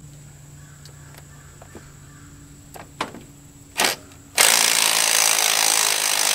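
A 12-volt cordless 3/8-inch impact wrench running in a loud, steady burst that starts about two-thirds of the way in, its hammering breaking a keeper-block bolt loose. Before it there are a few sharp metal clicks.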